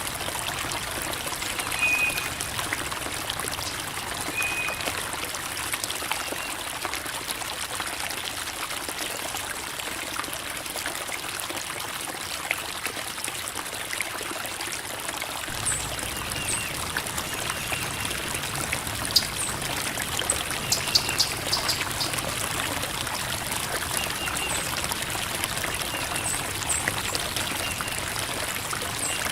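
Small creek babbling and trickling over rocks, a steady flow of water that grows fuller and lower from about halfway. A few faint short high chirps come now and then.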